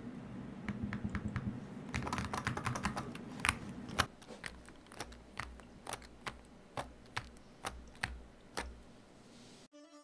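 Typing on the Akko MOD007B HE Hall Effect keyboard in its stock state, before its stabilizers are lubed. A quick flurry of keystrokes gives way to slower single key presses that thin out near the end.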